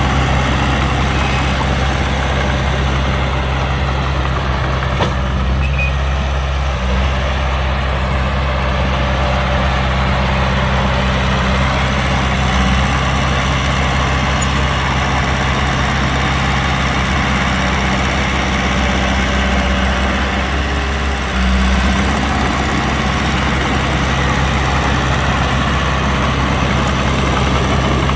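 Heavy diesel engine of a dump truck or bulldozer running steadily, with a brief dip and slight rise in level about 21 seconds in.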